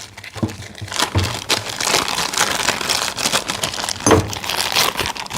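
Plastic packaging crinkling and crackling as large impact sockets are unwrapped and handled, with a dull knock about four seconds in.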